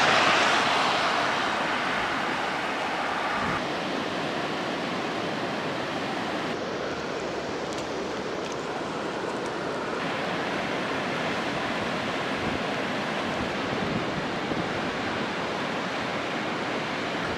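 Steady rushing outdoor noise of wet weather, wind or running water. It changes in tone abruptly a few times, as if separate shots were cut together.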